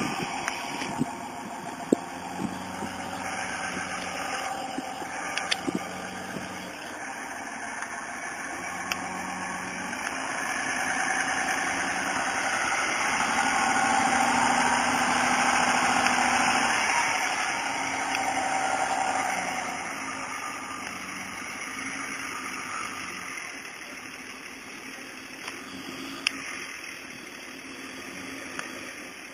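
2006 Dodge Ram 2500 pickup's engine running as the truck drives off-road, getting louder about ten seconds in as it climbs a steep grassy bank under load, then easing off again.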